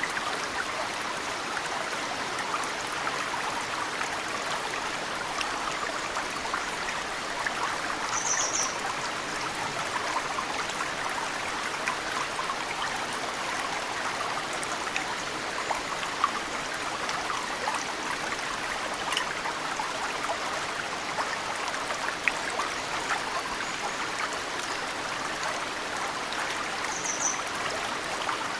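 Mountain stream rushing steadily, with scattered small drips of snowmelt falling into the water. A bird gives a brief high chirp about eight seconds in and again near the end.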